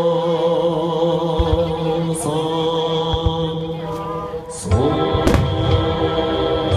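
Buddhist sutra chanting held on a steady droning pitch, with firework shells thudding a couple of times and a louder burst of bangs about five seconds in.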